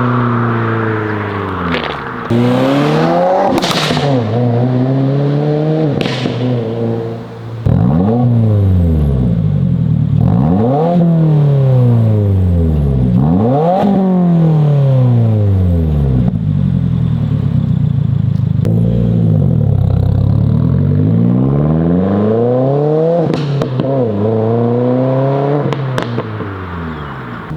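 2022 Subaru WRX's turbocharged 2.4-litre flat-four being revved over and over through a Remark 4-inch axle-back with the mufflers deleted: the engine note climbs and falls repeatedly, with a few sharp pops.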